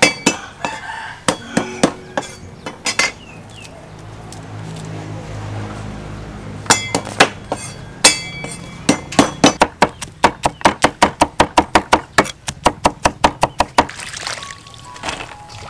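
Kitchen knife striking a wooden cutting board: a few scattered knocks, then a quick, even run of chops, about five a second, for some five seconds.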